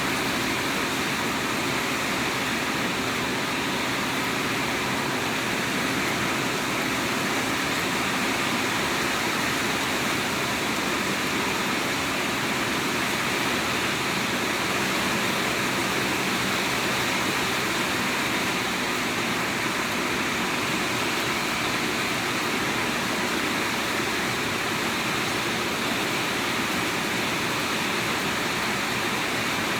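Steady rain falling: a constant, even hiss with no breaks.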